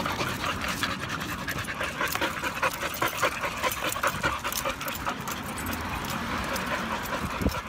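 Several dogs panting close up, quick overlapping breaths several a second.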